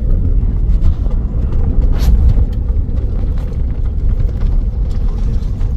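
Vehicle driving, a steady low rumble of engine and road noise heard from inside the cab.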